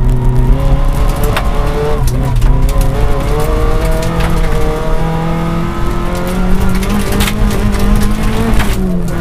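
VW Golf GTI Mk3 rally car's engine, heard from inside the cabin, driven hard on a gravel stage: the revs rise and fall with gear changes, with a long climb through the middle and a drop near the end. Sharp clicks and knocks from the rough road come through over the engine.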